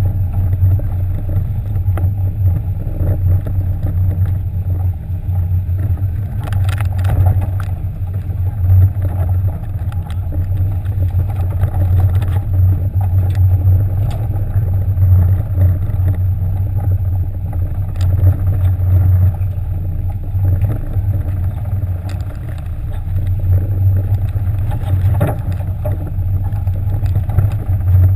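Sportfishing boat's engines running with a steady low drone, with a few short knocks.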